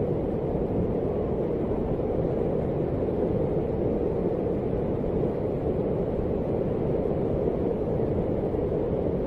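Muddy floodwater rushing past in a fast, swollen torrent: a steady, low rushing noise that doesn't let up.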